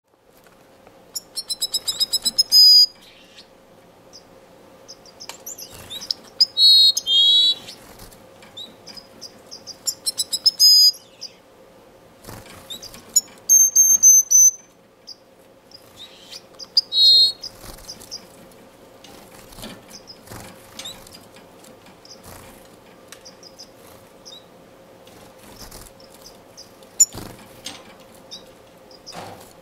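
Male blue-capped cordon-bleu singing: about five short, high song phrases of rapid notes, a few seconds apart, each phrase different. A steady faint hum runs underneath.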